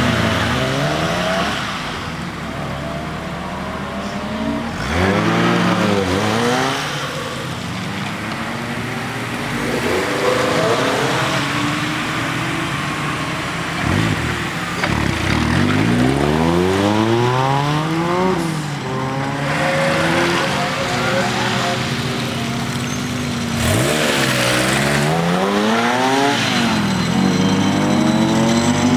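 Small petrol cars pulling away one after another on a wet surface, about every four to five seconds. Each engine revs up through the gears, its pitch climbing and dropping back at each shift, with tyre hiss from the wet tarmac as it passes.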